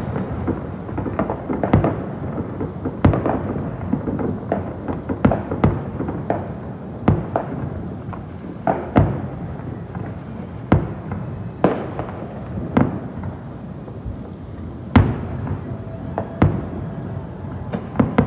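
Fireworks display: a long run of irregularly spaced bangs, one every second or so, over a continuous low rumble.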